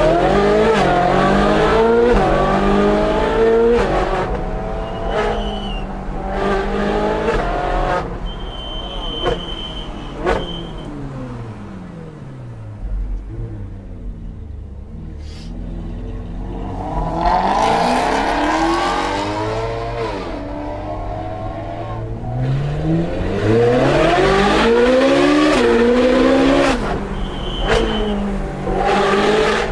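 Ferrari 458 Speciale's naturally aspirated V8 through an aftermarket Fi exhaust, heard from inside the cabin under hard driving. The revs climb and drop again and again, ease off to a lower, calmer note about twelve seconds in, then pull hard again twice toward the end.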